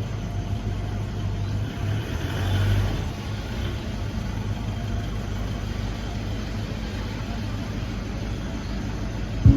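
Toyota Hiace diesel engine idling steadily, with a brief swell about two and a half seconds in.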